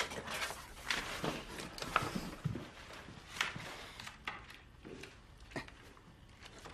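Scattered light knocks, clicks and rustles, irregular and separate, with faint bits of a low voice now and then.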